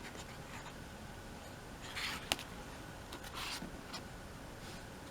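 Pages of an album photo book being turned by hand: a few soft paper swishes, the loudest about two seconds in, followed by a sharp tick.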